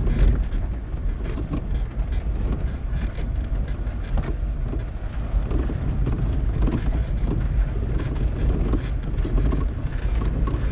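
Car interior on an unpaved road: steady low engine and road rumble heard inside the cabin, with faint small rattles.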